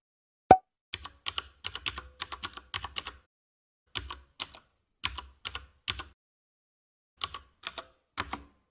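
A short bright ding about half a second in, then computer-keyboard typing sound effect: quick runs of key clicks in three bursts of a second or two each, with short pauses between.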